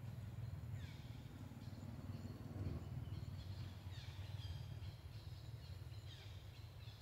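Faint forest ambience: a bird gives a short call falling in pitch, a few times over, above a steady low rumble.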